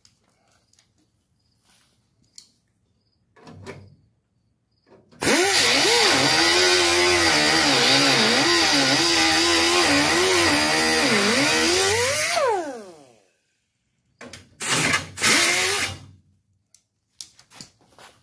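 Grinder with a thin cut-off disc slicing through two layers of sheet metal at once, the new cab-corner patch and the truck's old cab metal, to finish the joining cut. It runs for about seven seconds, its whine dipping and recovering as the disc bites, then winds down when released; a couple of seconds later comes a second, shorter burst of cutting.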